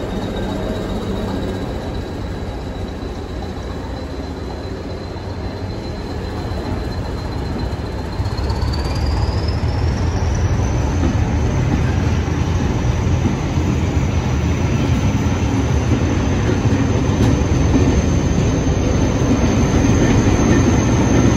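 Hastings diesel-electric multiple unit 1001 (Class 201) moving off and passing at low speed: diesel engine and wheel rumble that grows louder, with a thin high whine that climbs in pitch about halfway through and then holds steady.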